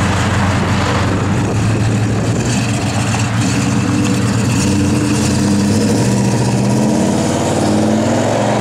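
1971 Pontiac LeMans Sport's 400 cubic-inch V8 running through its dual exhaust, idling steadily, then pulling away with the revs rising about six seconds in.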